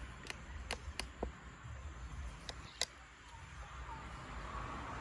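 Dogs eating from bowls: a handful of sharp crunching clicks in the first three seconds, then only a low background rumble.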